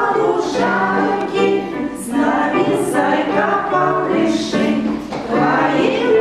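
Several voices singing a children's song together in unison, with musical accompaniment.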